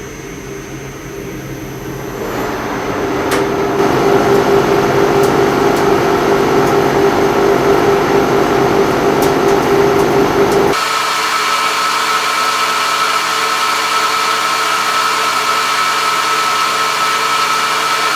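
Sidney metal lathe running with a loud, steady gear drone that grows louder over the first few seconds. About ten seconds in, the sound changes abruptly to a higher-pitched steady whine. The noise persists despite new bearings, and the owner suspects gear wear.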